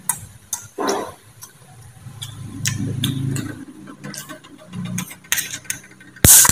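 Close-up mouth sounds of a man eating boiled egg: wet chewing with a series of sharp smacks and clicks, and a low murmur of chewing in the middle. Near the end a sudden loud crackling clatter stands out as the loudest sound.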